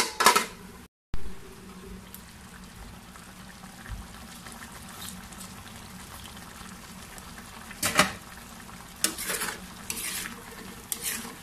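Metal lid clattering onto a frying pan, then a tomato-based pork stew simmering with a steady bubbling hiss, and a spatula scraping and stirring in the pan a few times near the end.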